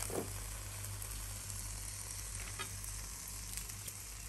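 Steady sizzling hiss of freshly air-fried chicken drumsticks, with a couple of light clicks of a fork and knife on a ceramic plate in the second half.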